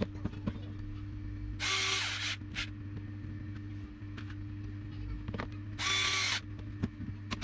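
DeWalt cordless drill-driver driving screws into plywood in two short bursts of under a second each, about four seconds apart, over a steady low hum.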